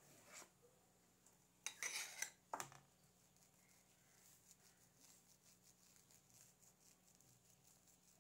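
Palette knife scraping and clinking against a dish in a quick cluster of short strokes about two seconds in. Then faint scratching as it spreads chocolate cream for the crumb coat.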